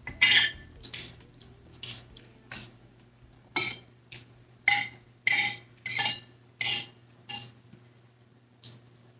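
Metal spoon and fork clinking and scraping against a plate while food is scooped up: about a dozen sharp clinks at an uneven pace, roughly one every half second to a second, thinning out after about seven seconds.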